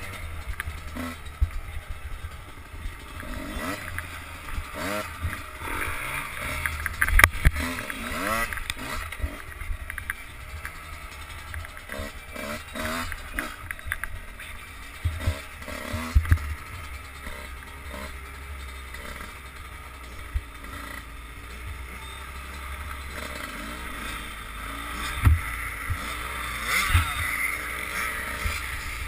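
Enduro dirt bike's engine revving up and down over rough ground, recorded from the rider's helmet. Knocks and clatter come from the bike jolting over bumps and stones, with a few sharper thumps among them.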